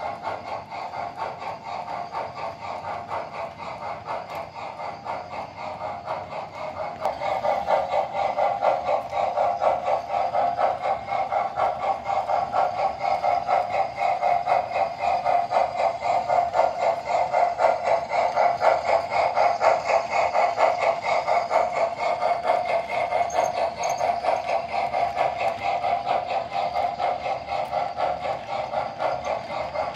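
O-scale model geared-locomotive train running on the layout track, making a rapid, even rhythmic clatter that gets louder about seven seconds in as it comes nearer.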